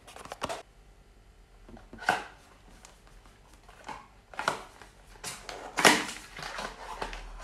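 Small cardboard gift box being handled and opened by hand: scattered taps, scrapes and rustles of card with a few sharper clicks, the loudest about six seconds in.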